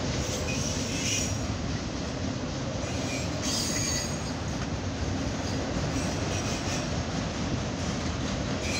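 Autorack cars of a CSX freight train rolling past: a steady rumble of steel wheels on rail, with brief high wheel squeals about a second in and again near four seconds.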